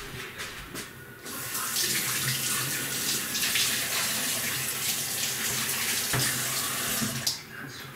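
Kitchen tap running into the sink while a spoon is rinsed under it: a steady rush of water that starts about a second in and is shut off suddenly near the end.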